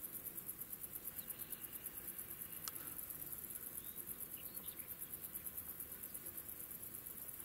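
A steady chorus of insects chirring in high, rapid pulses in a summer grass field, with a few faint bird chirps and a single sharp tick partway through.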